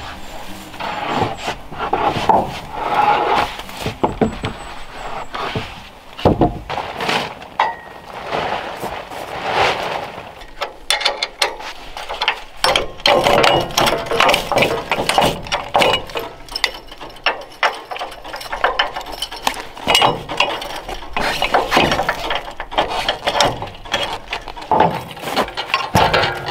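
Metal clanking, clinking and ratcheting as the steel track, bunks and legs of a portable sawmill are bolted together and adjusted with hand tools: many short knocks in an irregular run.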